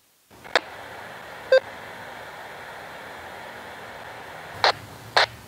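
Handheld amateur radio receiving a cross-band repeater link: a click and a steady squelch hiss, a short courtesy beep from the repeater about a second and a half in, then two clicks near the end. The two clicks are the double kerchunk: first the repeater drops, then the UHF link.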